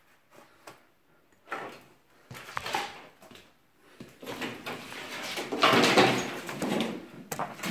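Scraping, knocking and crunching of wood and ceiling debris during demolition, in irregular bursts, with the loudest, longest stretch from about four to seven seconds in.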